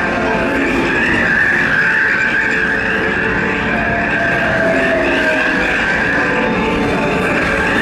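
Steel wheels of the Disneyland Railroad train squealing against the rails: a loud, steady, high screech that wavers slightly in pitch and never lets up.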